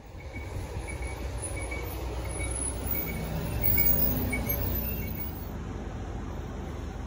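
A motor vehicle passing on the street: a low rumble that swells to its loudest about four seconds in, then eases off.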